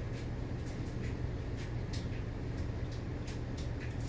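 Emerson Premium 52-inch ceiling fan running at speed: a steady rush of air with a low hum, and a few light clicks scattered through it.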